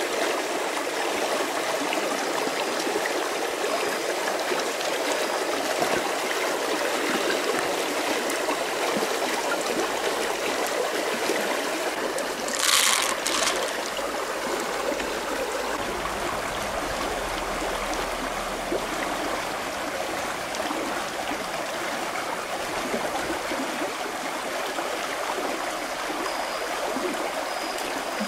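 Shallow river rushing steadily over rocks. About halfway through there is a brief, louder sharp noise.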